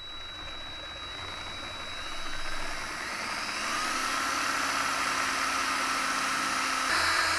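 Power drill running slowly, boring a hole into a cue ball shifter knob for a push-button switch. A steady run that grows slightly louder, with a whine joining about halfway through.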